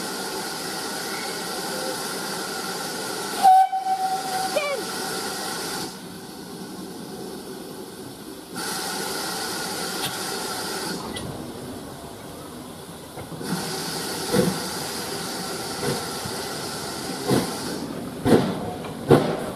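Steam tank locomotive hissing steam and giving a short whistle about three and a half seconds in. It then starts off with its coaches, and separate exhaust beats come closer together near the end.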